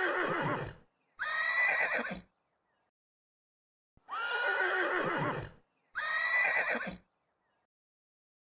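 A horse whinnying in pairs: the end of one whinny, then a short one about a second in, and after a pause a longer whinny followed by a short one. Each whinny ends in a falling slide down in pitch.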